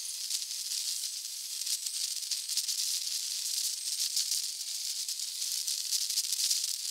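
Wind rush and road noise on a motorcycle-mounted camera, with a constant fine rattle and clicking as the Yamaha FJR1300 rides over a rough, broken road surface. Under the noise, a faint whine of the engine rises and falls slightly.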